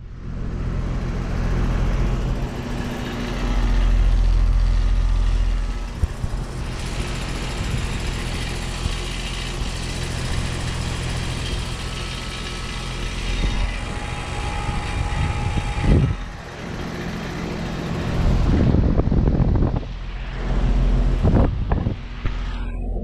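Carrier Comfort heat pump running in cooling mode: a steady low hum under the rushing air of its fan. Louder low rumbles swell in a few times, about four seconds in and twice near the end.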